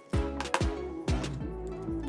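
Background music with a steady beat: sustained bass notes and a percussive hit about every half second.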